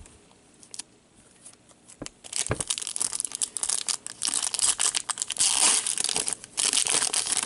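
A foil trading-card pack being torn open by gloved hands, its wrapper crinkling and tearing in a dense run that starts about two seconds in, after a few light clicks.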